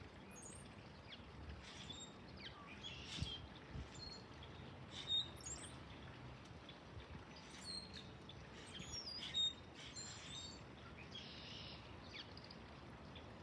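Backyard birds calling: faint, scattered short high chirps and twitters from several birds, the loudest about five seconds and nine and a half seconds in.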